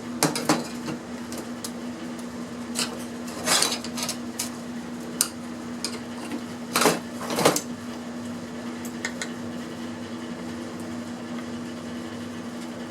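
Scattered clicks, scrapes and clatter of metal and plastic parts being handled and pried at while taking apart an electronic device, over a steady background hum. The handling stops after about eight seconds, leaving the hum.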